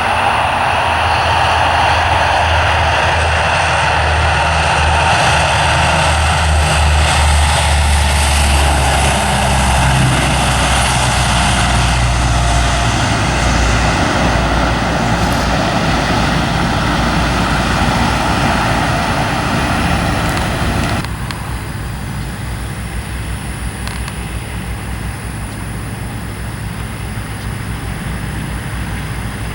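Loud aircraft engine noise from military aircraft, with a strong low rumble. About 21 seconds in it drops abruptly to a quieter, steady engine sound.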